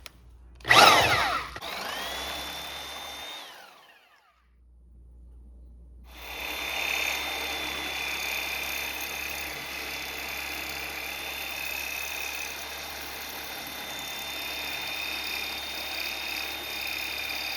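Porter Cable Tiger Saw reciprocating saw with a 9-inch carbide-tooth blade: a loud start about a second in, then a short run that dies away by about three seconds. From about six seconds it runs steadily with a high whine as the blade cuts through thick metal.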